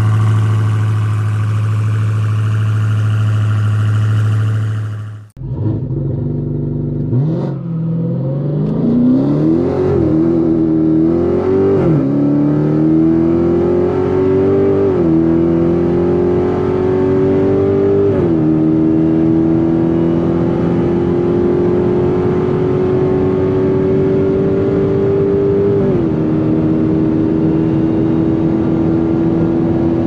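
Dodge Charger Hellcat's supercharged 6.2-litre V8 running at a steady pitch, then after a brief break about five seconds in, accelerating hard through the gears. The engine note climbs and drops back at each upshift, about five shifts, ending on a long slow climb before the last one.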